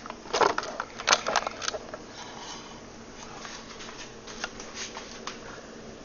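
Clicks and scrapes of hands working a screw loose and opening the electronics enclosure, bunched in the first two seconds, then faint handling ticks over a low steady hum.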